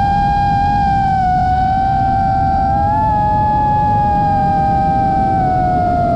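FPV freestyle quadcopter's brushless motors and propellers whining in flight, the pitch wavering a little with throttle and a second, lower motor tone splitting off about halfway through. Wind rumble on the onboard camera's microphone sits underneath.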